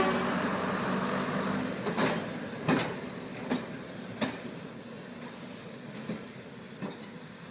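Class 122 single-car diesel railcar ('bubble car') running slowly, its engine noise fading, with its wheels clicking over the track at a steady rate of a little more than one click a second.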